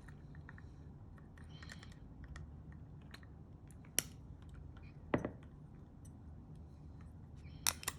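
Faint scattered clicks and taps of a metal dental instrument handling wire on a plastic typodont, over a low steady hum. A sharper click comes about four seconds in, another just after five seconds, and two more near the end.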